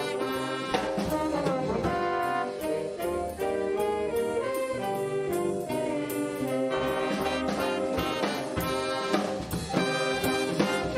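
A student band playing, led by brass: trombones and trumpets sounding a moving melody in chords, with regular percussion hits.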